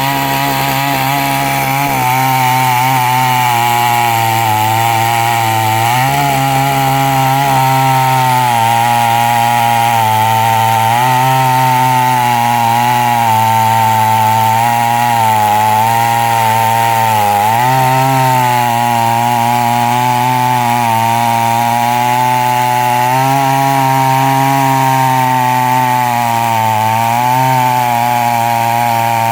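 Chainsaw running at high speed while cutting wood, its engine note sagging briefly and recovering several times as the chain loads up in the cut.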